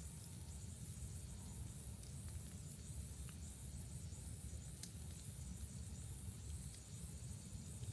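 Wood fire burning with a steady low rumble and a few sparse, faint crackling pops.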